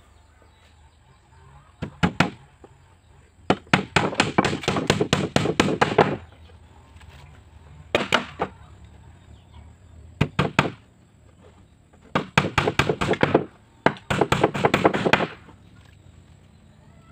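Claw hammer nailing a wooden rib to the meranti planks of a jukung boat hull. The blows come in fast runs of about five a second, with pauses between them.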